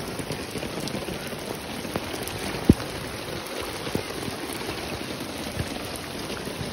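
Rain falling steadily, an even hiss, with a few sharp taps; the loudest comes about two and a half seconds in.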